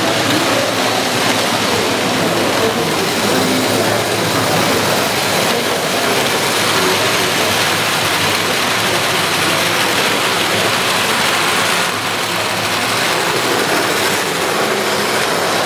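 Electric model trains running on a layout: a steady rumbling whir of motors and wheels on the track, a little louder in the middle as a freight train passes close by.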